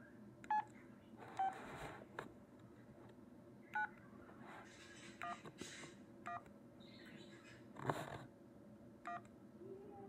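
LG 285 flip phone's keypad tones: about six short beeps as the navigation keys are pressed while scrolling through menus, with one sharp click near the end.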